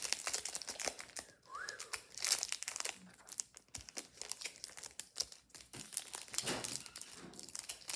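Foil Pokémon booster pack wrapper crinkling and crackling irregularly in the hands as it is handled and worked at to get it open.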